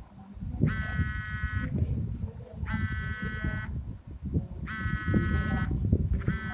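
Smartphone incoming-call ringtone: a buzzy electronic ring about a second long, repeating about every two seconds, over a low rattling noise.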